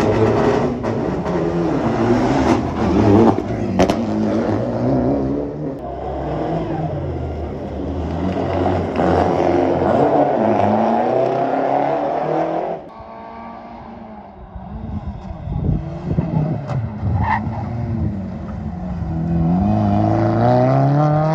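Rally car engines revving hard and accelerating, their pitch rising and falling through gear changes. About thirteen seconds in the sound drops sharply to a quieter passage. Near the end a Renault Clio rally car accelerates with a steadily rising engine note.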